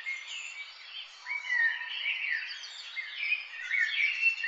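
Many small birds chirping and calling at once, a busy tangle of short, overlapping rising and falling calls.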